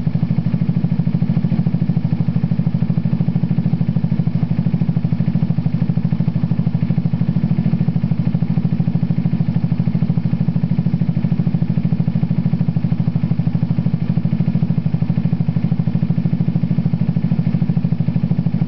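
Scooter engine idling steadily with rapid, even firing pulses during warm-up after a cold start, its electric enricher (automatic choke) powered and heating.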